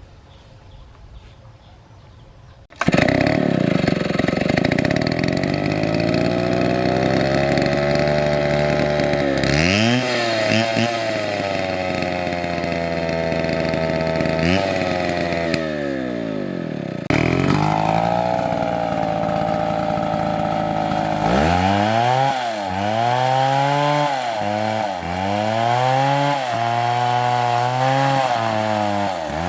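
Two-stroke chainsaw running at high revs, coming in suddenly about three seconds in after a quiet stretch. Its pitch sags and recovers several times, and near the end it is revved up and down in quick succession.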